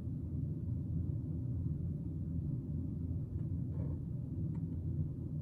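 Steady low hum, with a few faint light ticks around the middle.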